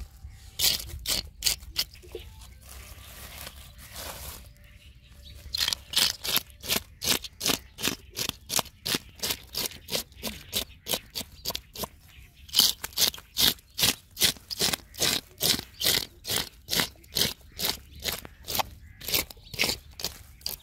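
Scales being scraped off a large common carp with a nail-studded wooden scaler: quick rasping strokes, about two to three a second, with a short pause a few seconds in.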